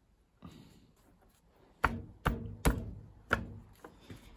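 Cast aluminium motor end bracket knocking against a washing-machine motor as it is pushed and rocked on over a newly fitted bearing: about five sharp knocks with a short ring, about half a second apart, starting near the middle.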